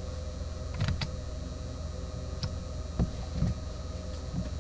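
A few light clicks and taps from small metal hardware parts (a machine screw and washer) being handled, over a steady low hum.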